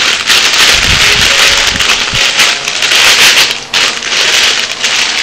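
Granular activated carbon being poured into a cut plastic bottle: a steady, loud rush of grains with brief breaks near the end, and a couple of low knocks about one and two seconds in.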